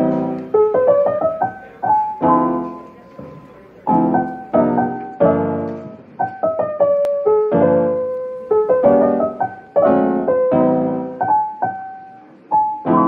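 Instrumental background music led by piano: chords struck about once a second or two, each ringing and fading, with a melody of single notes above them.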